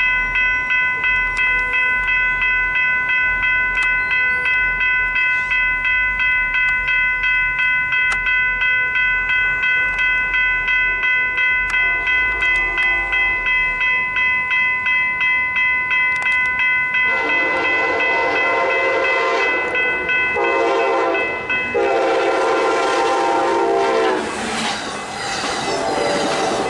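General Signal Type 3 electronic railroad crossing bells ringing at about two strokes a second, while an approaching Amtrak train sounds its K5LA horn in the grade-crossing pattern: a faint long blast, then a loud long, a short and a long blast. The train then rolls past, with wheels clattering on the rails near the end.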